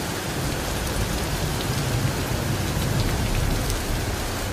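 Heavy rain pouring steadily, with a low rumble underneath. It starts and stops suddenly.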